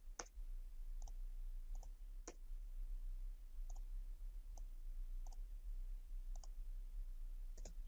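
Faint computer mouse clicks, about nine spread unevenly, some in quick pairs.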